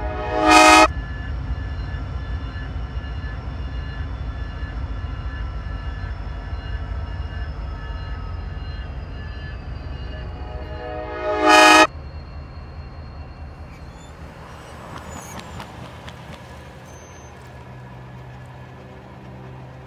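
Diesel freight locomotive's engine rumbling, with two multi-tone horn blasts played backwards: each swells in and cuts off abruptly, a short one near the start and a longer one about eleven seconds in. After the second blast the rumble drops away and grows quieter.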